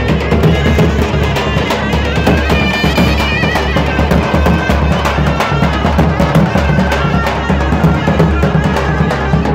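Zurla (folk shawm) and tapan (large double-headed drum) playing loud dance music: a sustained, wavering reed melody over steady drum beats.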